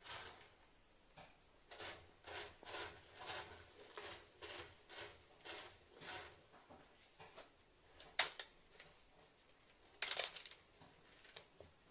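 A cat pawing and raking litter in a plastic litter box, a run of short scratchy strokes about two a second. A sharp click comes about two-thirds of the way through and a louder scrabbling rustle near the end as the cat climbs onto the box's rim.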